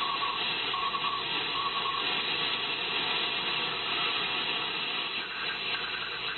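Elecraft KX3 transceiver receiving the 6 metre band: steady receiver hiss with a raspy, distorted Morse code (CW) signal keyed on and off for about the first two seconds, the raspiness caused by auroral backscatter propagation. Near the end a fainter keyed signal at a higher pitch comes in as the dial is turned.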